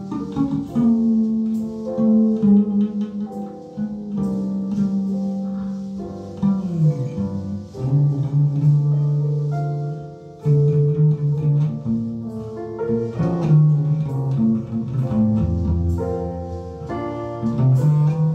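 Music with plucked guitar notes over a bass line, played back through floor-standing hi-fi speakers.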